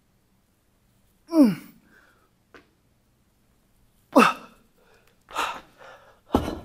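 A man's strained effort grunts during dumbbell shoulder presses: two of them, about three seconds apart, each falling in pitch. They are followed by heavy breathing and, near the end, a loud thud as the dumbbells are set down on the floor.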